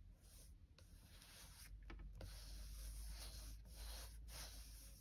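Faint rubbing of fingertips pressing a thick, raised sticker flat onto a paper planner page.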